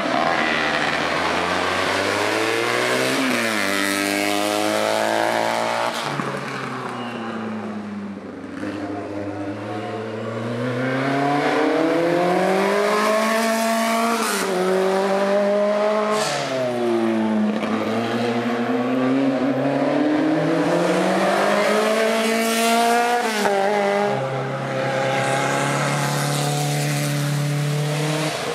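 Race car engine at full throttle on a hillclimb, its pitch climbing and dropping over and over through gear changes and braking, with a few sharp cracks along the way.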